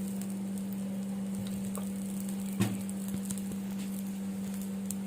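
Dosa batter sizzling faintly on a hot tawa, with a steady hum underneath and one sharp knock about two and a half seconds in.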